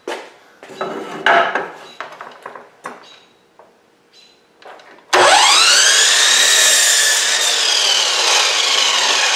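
Several knocks and clatters as a wooden board is handled, then about five seconds in a chop saw (power miter saw) starts with a rising whine and runs steadily, cutting through the board.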